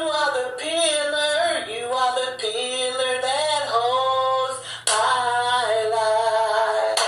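A woman singing a praise melody, with held notes sliding and wavering in vibrato and a short break about five seconds in.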